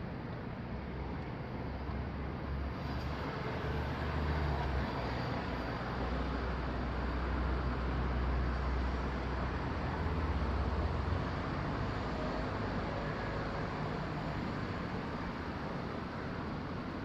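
Steady outdoor background noise with a low rumble that swells from about a second in and eases off after about eleven seconds.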